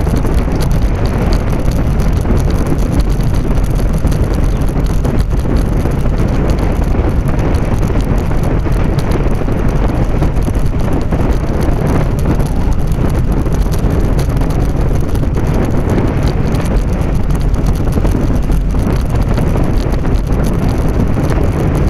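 Steady wind buffeting the microphone and the rumble of tyres rolling on asphalt from a camera riding on a moving bicycle.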